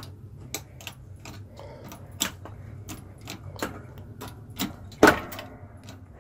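Shop press being worked by hand to drive a hole punch through a silver half dollar coin: a string of uneven clicks and clanks, about three a second, with one sharp, louder snap about five seconds in.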